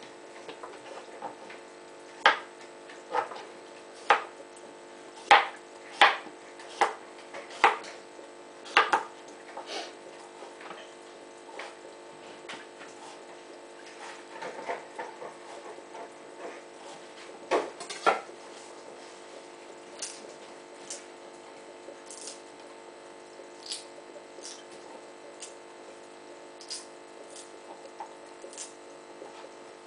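A kitchen knife chopping cucumber on a plastic cutting board: a sharp knock with each cut, about one a second through the first half, two more near the middle. Fainter, scattered clicks follow as the cut pieces are handled.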